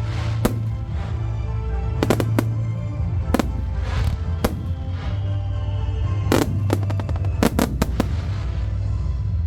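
Aerial firework shells bursting in a dozen or so sharp bangs, bunched around two seconds in and again in a quick run near the end, over a backing track of music with heavy bass.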